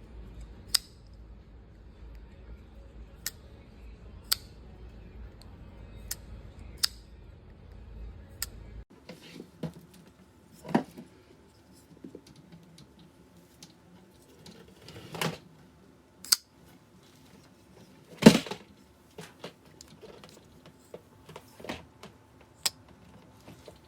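Flipper folding knife being worked in the hand: sharp metallic clicks of the blade snapping open and shut, one every second or two. After about nine seconds come heavier knocks of handling, the loudest about eighteen seconds in, with more light clicks.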